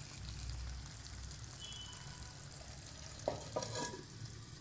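Drumstick and brinjal thokku simmering with a faint sizzle in an earthenware pot over a low steady rumble. A little past three seconds in there are a couple of short clay-on-clay knocks as the pot's earthenware lid is handled.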